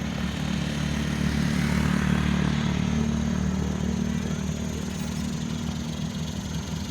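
Vehicle engine running steadily at an even idle-like speed, a constant low hum.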